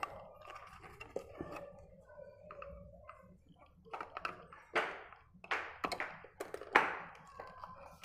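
Plastic clicking and knocking from a refrigerator fan motor and its plastic bracket being handled and pulled apart, with a few sharper knocks in the second half.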